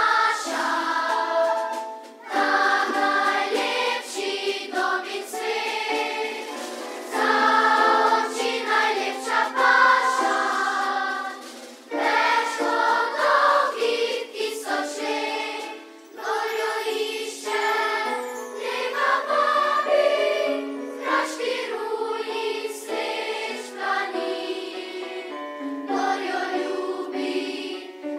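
Large massed children's and youth choir singing phrase after phrase, with short breaks between phrases.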